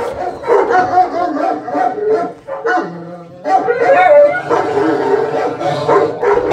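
Several kennel dogs barking and whining at once without a break, with a long wavering whine about halfway through.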